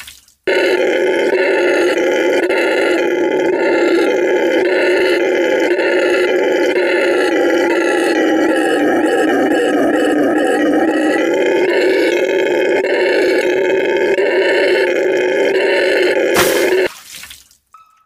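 Howler monkey roaring: one long, unbroken roar, steady in loudness, that starts about half a second in and cuts off shortly before the end.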